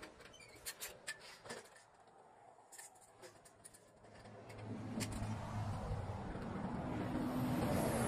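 A few light clicks and knocks, then from about halfway the engine and tyre noise of a road vehicle grows steadily louder, loudest near the end.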